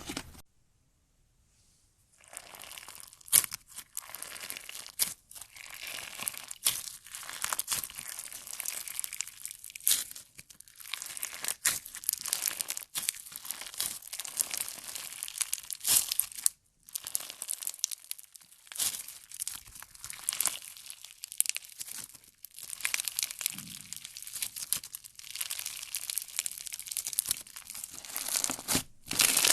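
Crunchy slime being squeezed and pressed by hand, a dense run of crackling and popping that starts after about two seconds of quiet.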